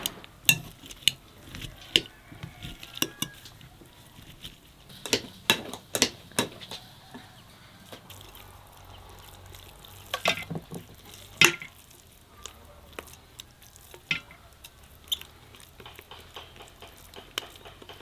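Metal potato masher pressing boiled vegetables in a glass bowl, with sharp clinks and knocks against the glass, then a metal spoon scraping and tapping soft mash out of the glass bowl.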